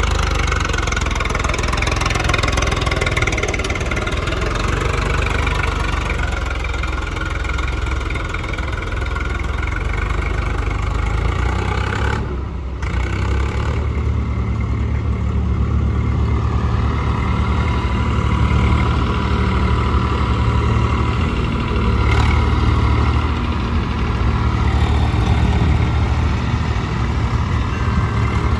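Diesel engines of a JCB 3DX backhoe loader and farm tractors running steadily, with a brief drop about twelve seconds in.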